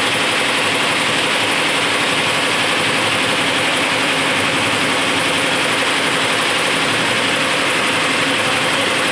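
Multi-head computerised embroidery machine running, its row of needle heads stitching thread designs into fabric with a steady, rapid mechanical clatter.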